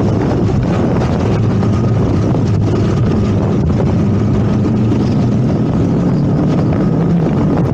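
Yamaha MT-25's parallel-twin engine running steadily at riding speed, with wind rushing over the camera microphone.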